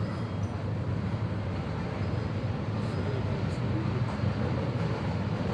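Steady low background rumble of outdoor ambience, with no distinct animal calls.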